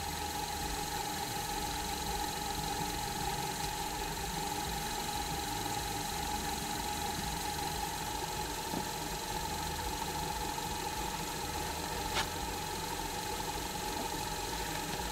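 Small cue lathe's electric motor running at a steady speed with the cue shaft turning in it, an even hum with a constant high tone. One light click about twelve seconds in.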